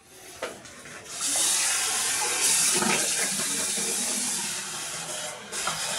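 Water running steadily, starting suddenly about a second in and easing off near the end, with a single click just before it starts.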